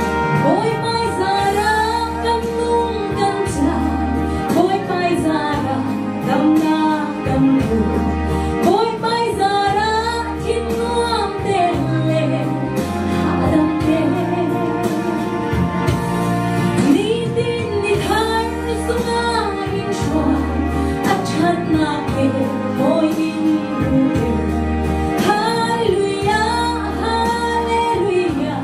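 A woman sings a Christian worship song into a microphone through a PA, over backing music with sustained bass notes.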